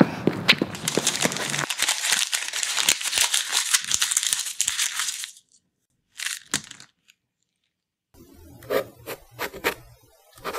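Dense crackling and crumpling noise for about five seconds that stops suddenly. After that it is nearly quiet apart from one short rustle, then a few separate knocks and clicks over a faint hum near the end.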